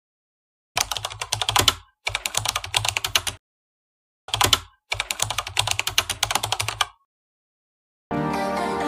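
Keyboard-typing sound effect: four runs of rapid key clicks separated by dead silence. Music comes in near the end.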